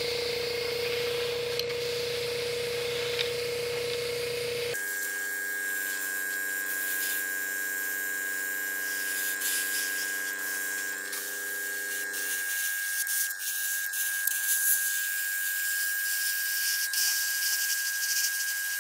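Airbrush hissing as it sprays silver chrome paint in light passes, with a steady hum beneath; the sound changes abruptly about five seconds in.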